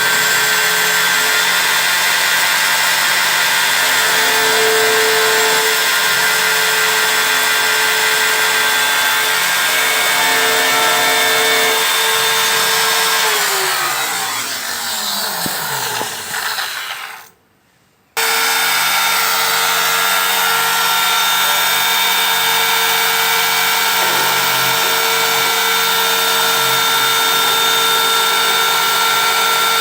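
CNC engraving machine running with a steady motor whine. A little past halfway the motor winds down, its pitch falling, and stops for about a second, then the machine sound comes back at once at full level.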